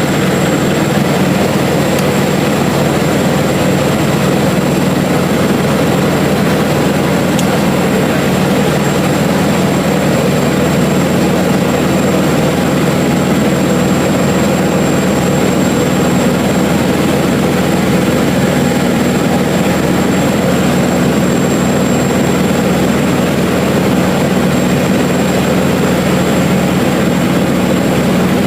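Cessna 177RG Cardinal's four-cylinder piston engine and propeller running at a steady power setting, a loud even drone with a thin high whine above it, as heard from inside the cabin.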